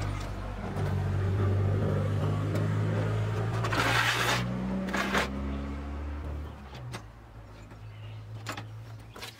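A motor vehicle's engine running steadily; its pitch steps up slightly about halfway through, and it fades away after about seven seconds. A short hiss sounds about four seconds in.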